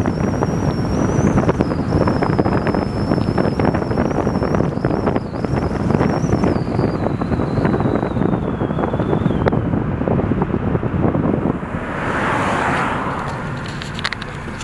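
Wind and road rumble from a car driving at speed, heard from inside the car, with a faint high whine that slowly falls in pitch and fades out about two-thirds of the way through. The rush eases off near the end as the car slows for an intersection.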